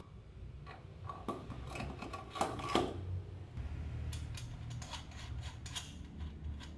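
Light metallic clicks and rattles of a go-kart wheel being fitted on its axle shaft and a nut turned on by hand, loudest a little over two seconds in, over a low steady hum.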